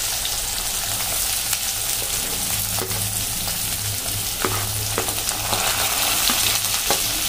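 Chopped onions sizzling as they are spooned into hot mustard oil in a kadhai, with a few sharp clicks of the spoon against the pan.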